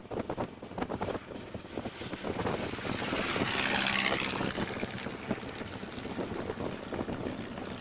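Wind rushing over the microphone in an open Model T Ford at road speed, over engine and tyre noise. The rush swells louder and brighter about three to four seconds in, then settles again.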